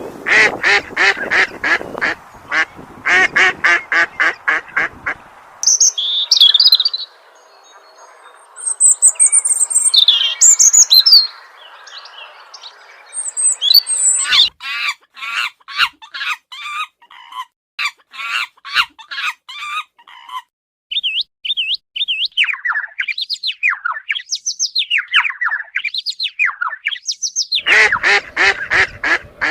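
A run of bird calls: fast trains of short repeated calls for the first five seconds and again from about 14 to 20 seconds, high chirps in between, and a warbling call that glides up and down from about 21 to 27 seconds. The fast calls return near the end.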